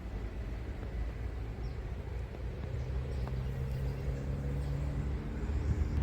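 Low outdoor rumble. About halfway in, a steady engine hum comes in and grows louder, as from a motor vehicle passing by.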